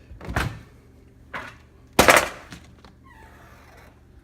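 A few knocks and clunks of a dish being set into a microwave and its door shut, the loudest about two seconds in.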